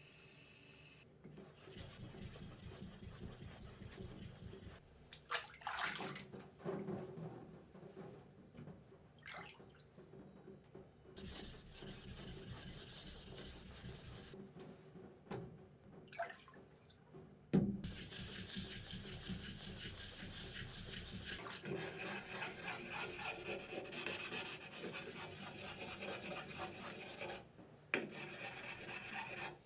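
Wet scraping of a small flat block rubbed back and forth across a soaked whetstone, the stroke rhythm steadiest in the last third. A single sharp knock sounds a little past halfway.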